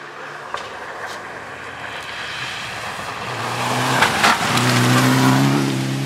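Rally car engine approaching fast on a loose gravel stage, growing louder from about three seconds in and loudest about five seconds in, with gravel spraying from the tyres.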